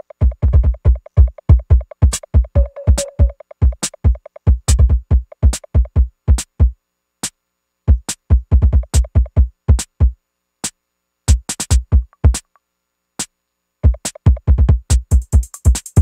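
Live electronic music from a drum machine: a fast, steady kick drum pattern that breaks down into sparse, scattered single hits in the middle, then drops back in at full strength, with a hissing hi-hat layer coming in near the end.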